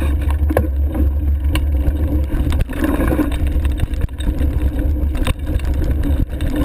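Steady low rumble of wind and 4.8-inch fat tyres on the microphone of a fatbike rolling along a dirt trail, with frequent knocks and rattles as the bike goes over bumps.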